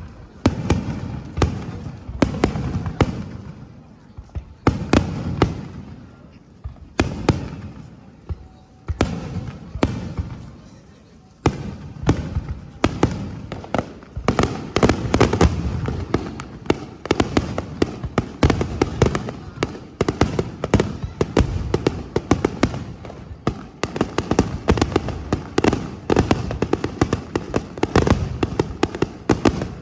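Aerial fireworks bursting: separate booms, each with a fading echoing tail, then from about twelve seconds in a rapid, dense barrage of bangs and crackles.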